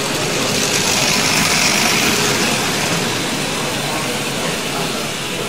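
Tri-ang TT gauge model train running past on its track: a whirring rattle of wheels and motor that swells to its loudest about two seconds in and then fades.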